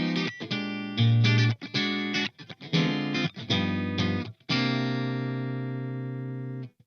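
Soloking MS-1 Classic MkII electric guitar with HSS pickups, played as a sound test: a run of short chords and notes with brief stops between them. It ends on one held chord that rings for about two seconds, fading slowly, and then cuts off suddenly.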